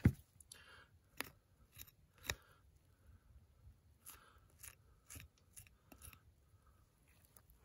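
Knife cutting meat away from a swamp rabbit's spine: faint scraping, broken by scattered sharp clicks of the blade, the loudest right at the start.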